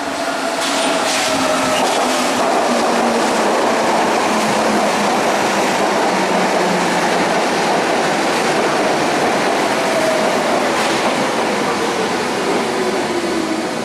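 Berlin U-Bahn train running into an underground station: loud, steady rumble of wheels on the rails with whining tones that fall slowly in pitch as the train slows along the platform.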